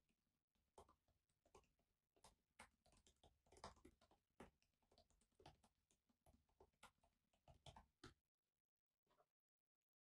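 Faint typing on a laptop keyboard: quick, irregular key clicks that stop about eight seconds in.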